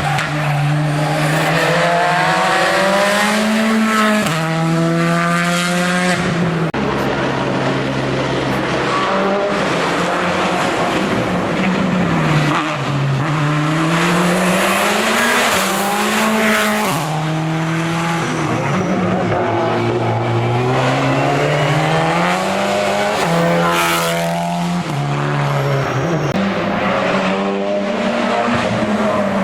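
Hill-climb race car engine accelerating hard up the course, its note climbing through each gear and dropping sharply at every shift, about half a dozen times, with lifts and downshifts in between.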